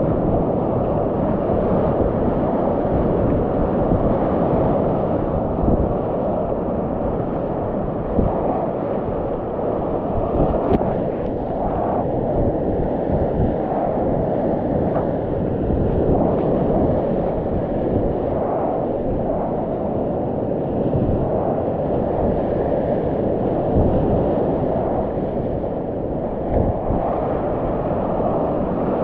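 Whitewater rapids rushing around a kayak running them: a loud, steady, muffled wash of water, with a few brief louder splashes.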